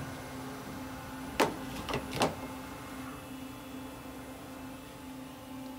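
Steady hum from a powered-up Brother TC-32BN-QT CNC drill and tap centre standing idle. About a second and a half in come three sharp knocks in quick succession.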